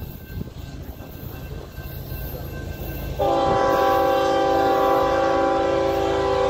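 Union Pacific freight locomotive's multi-note air horn sounding for a grade crossing. Under a low rumble for the first three seconds, then a long, steady horn blast starts suddenly about three seconds in and holds.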